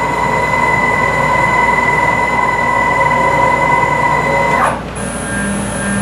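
Stepper motors of a DIY CNC router driving the gantry along its rail, a steady whine that cuts off sharply about three-quarters of the way through as the move ends. After it a fainter, very high whine.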